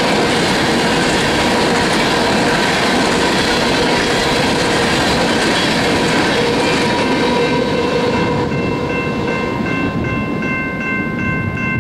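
Freight train's covered hopper cars rolling past over the rails, the rolling noise easing off as the last car clears about eight seconds in. The grade crossing's warning bell then comes through clearly, ringing in quick, evenly repeated strokes.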